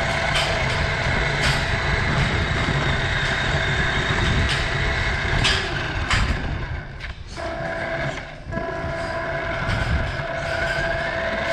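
Remote-control car driving over a concrete barn floor: its electric motor whining steadily over a rumble from the wheels, with scattered sharp knocks from bumps. The sound drops away briefly a little past halfway, and the whine rises in pitch near the end.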